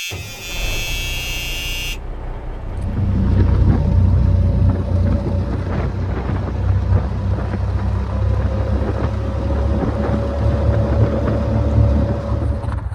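A high electronic tone cuts off about two seconds in. Then a vehicle's engine runs steadily under way, its low rumble getting louder about three seconds in.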